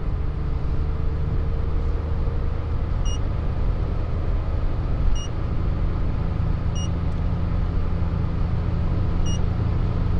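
Car engine and tyre noise heard inside the cabin at motorway speed, a steady low hum. Four short high beeps, about 3, 5, 7 and 9 seconds in, come from the Eco-Drive Advisor dashboard unit, warning that the accelerator pedal is pressed too far.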